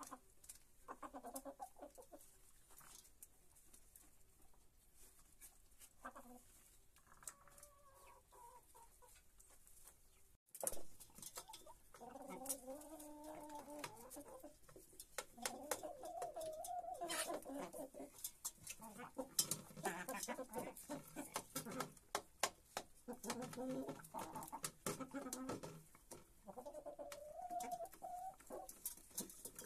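Domestic chickens clucking as they feed, with many sharp clicks of beaks pecking at the feed. The clucking is sparse at first and becomes busier and louder after a brief break about ten seconds in.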